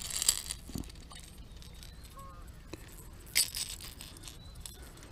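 A hooked bass splashing as it is brought in on a topwater popper, with short bursts of splashing near the start and again after about three and a half seconds, and light clicks of handling.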